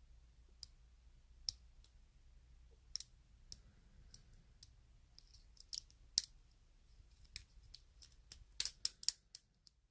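Lock pick clicking and scraping against the wafers of a small wafer lock while the core is under tension: scattered sharp clicks, bunching into a quick flurry near the end. It is single-wafer picking that is not opening the lock.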